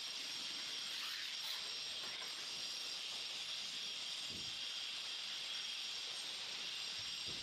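Steady hiss, with a faint soft thud about four seconds in as a stone tread slab is set down onto wet mortar on a stair step.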